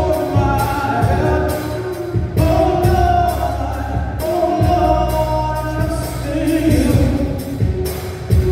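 A small vocal group, women's voices together with a man's, singing a slow gospel song in harmony.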